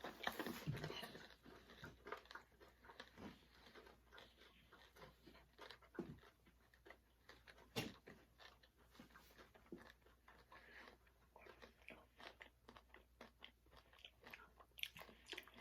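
Quiet, irregular crunching and chewing of candy-shelled chocolate mini eggs, many small crisp cracks as the hard coloured shells are bitten through, with one louder crack about eight seconds in.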